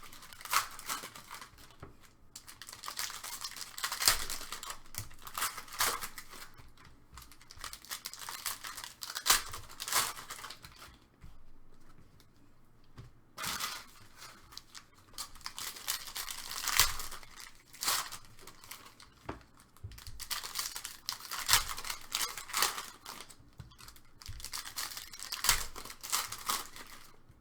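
Plastic wrapping on a box of trading card packs being crinkled and torn open, in irregular crackling bursts with a short pause about halfway.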